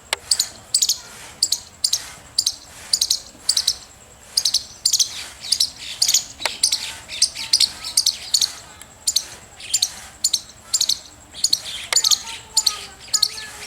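Squirrel chirping: a steady run of short, sharp, high-pitched chirps, about two a second.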